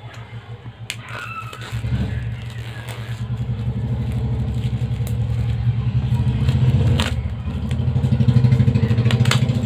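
A low, pulsing engine hum that swells about two seconds in and stays loud. Over it come a few sharp crackles from plastic shrink wrap being peeled off a phone box.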